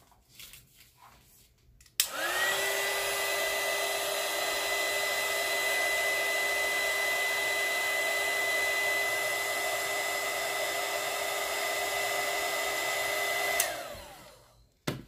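Small handheld heat gun switched on with a click about two seconds in, its fan running with a steady whine over a rush of blown air, warming freshly mixed epoxy resin. Near the end it is switched off with a click, and the whine falls away as the fan spins down.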